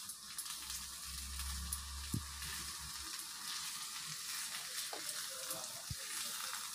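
Stuffed brinjals sizzling steadily in oil in a cast-iron pan, with a few light knocks as a wooden spatula turns them.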